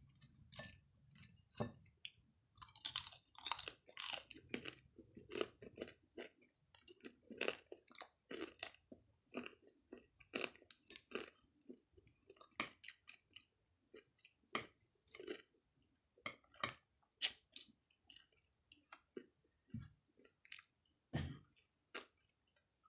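A person chewing mouthfuls of longganisa sausage and rice, in many short, irregular chews.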